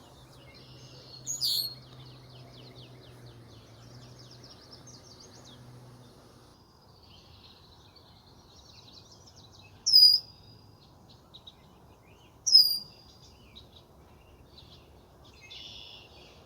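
Forest songbirds singing, with soft twittering and trills throughout. One bird gives a loud, sharp call three times, several seconds apart, each call sweeping down into a short held note.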